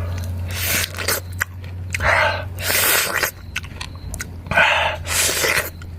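A person chewing a mouthful of undercooked, still-raw rice, with several loud breathy exhalations in between.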